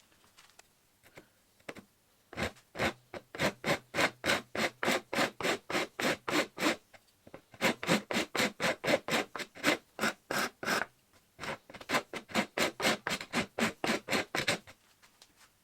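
Restored wood rasp worked back and forth over wood in quick, even strokes, about three to four a second, in three runs with short pauses between them.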